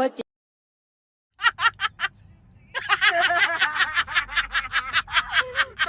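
A person laughing hard in quick, high-pitched bursts: a short run of four about a second and a half in, then, after a brief pause, a long unbroken run at about five a second.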